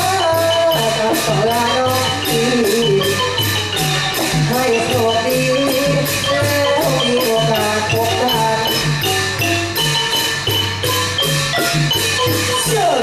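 Music with a steady, evenly repeating beat, a repeating bass line and a wandering melody line, ending in a falling slide.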